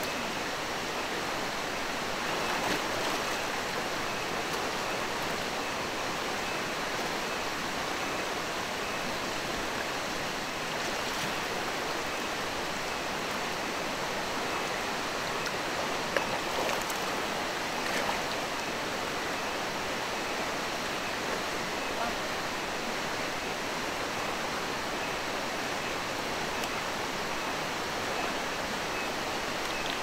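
Fast, rain-swollen river rushing over rocks in a steady, even wash of water noise. A couple of brief faint splashes come about halfway through.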